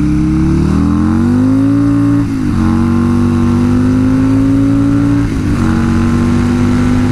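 Buell motorcycle's Sportster-derived Evolution V-twin accelerating hard under load. The revs climb, drop briefly at an upshift about two seconds in and again about five seconds in, then climb again.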